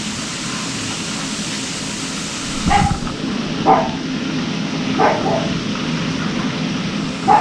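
A dog barking four short times, about a second or more apart, over a steady hiss.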